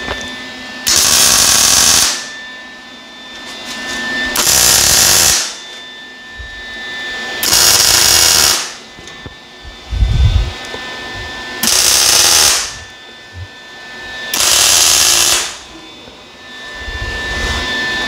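Welder tack-welding sheet-metal pieces onto a body panel: five crackling welds of about a second each, roughly three seconds apart, with a short low knock between the third and fourth.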